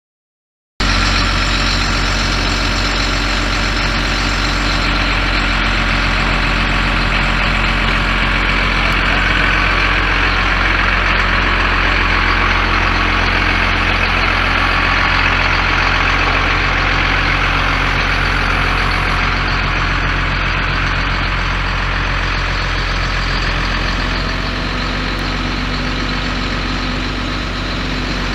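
Ford 6.6-litre inline-six diesel engine of a 1989 Ford F800 bucket truck running steadily.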